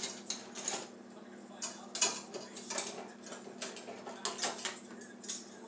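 Metal utensils clinking and rattling as hands rummage through a dishwasher's utensil basket for a pair of hand-mixer beaters: a run of irregular light clicks and clatters over a faint steady hum.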